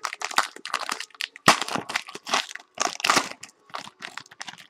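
Foil wrapper of a trading-card pack crinkling and crackling in the hands as it is pulled open. There is an irregular run of crackles, the loudest about one and a half seconds in.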